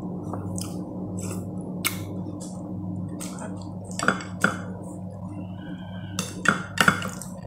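Metal spoon knocking and scraping against a bowl and plate while eating, about ten short light clinks, over a steady low hum.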